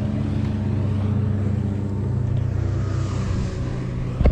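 An engine running steadily with an even, low hum, and a short low thump right at the end.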